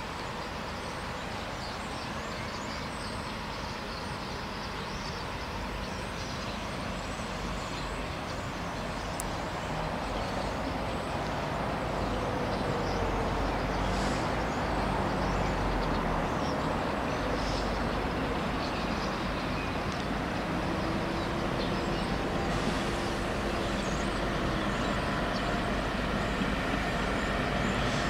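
Road traffic running steadily, growing louder about twelve seconds in. Near the end a Kustpilen regional train comes up to the crossing.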